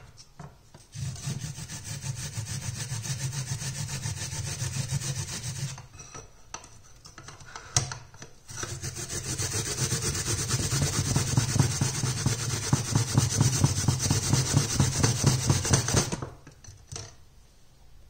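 Fast, even rasping strokes against a rough surface, in two long runs: one from about a second in lasting some five seconds, and a longer one from about the middle to near the end, with a single sharp click between them.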